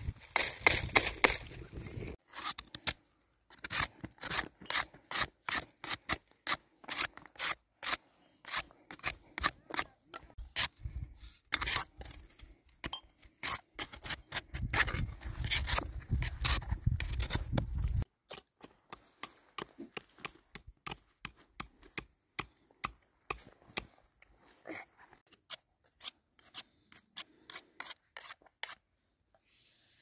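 A long run of short, sharp cutting or scraping strokes, several a second and unevenly spaced, stopping about a second before the end. A low rumble runs under them near the start and again in the middle.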